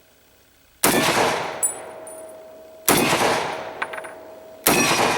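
M1 Garand semi-automatic rifle in .30-06 firing three shots about two seconds apart, each echoing and dying away. Under a second after each of the first two shots a short metallic ping follows, the bullet striking the mild steel plate downrange.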